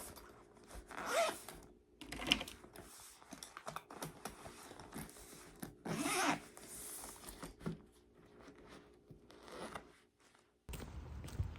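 Several short rasping strokes of handling noise, a few seconds apart, with small knocks between them. A different, louder background comes in abruptly near the end.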